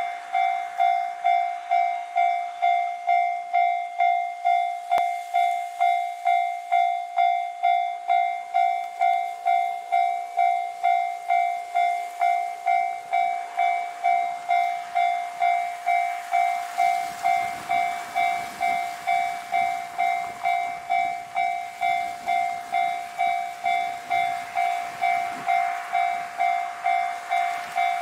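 A bell ringing steadily about twice a second, each strike dying away before the next. A low rumble comes in about halfway through.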